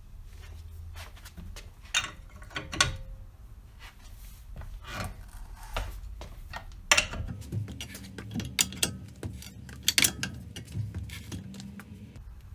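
Tools and metal parts being handled while a car's rear brake is taken apart: irregular clicks, knocks and scraping, with a sharp clack about two seconds in and several more between seven and ten seconds in.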